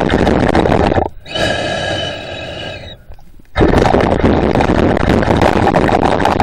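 A snorkeler breathing through a snorkel: a loud rough rushing breath, broken about a second in by a shorter whistling, wheezy breath, with the rushing breath again from about three and a half seconds in.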